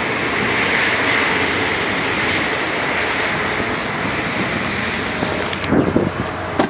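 Wind buffeting the microphone: a steady rushing noise. Near the end, a few short knocks and a click as the car's front door handle is pulled.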